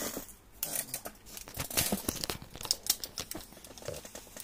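Clear plastic on the TV crinkling and crackling as it is handled and pulled, a run of irregular rustles and sharp crackles.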